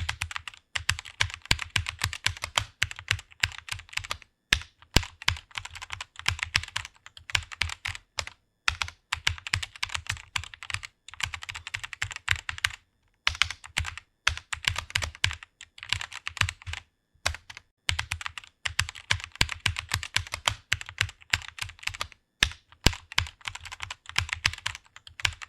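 Rapid typing on a computer keyboard: a dense, fast stream of key clicks, broken by brief pauses every few seconds.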